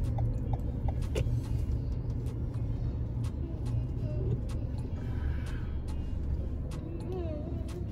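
Steady low rumble of a car driving in traffic, heard from inside the cabin.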